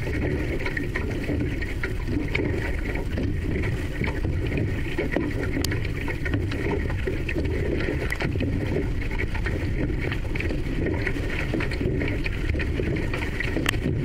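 Steady rush of water along the hull of an outrigger canoe under way as the crew paddles, with scattered light splashes and ticks.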